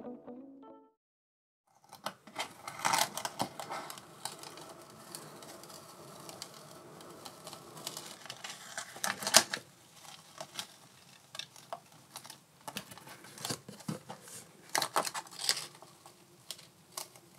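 Adhesive masking sheet being peeled off a painted canvas by hand, crinkling and crackling with many sharp clicks as the film comes away. The loudest snap comes a little past halfway.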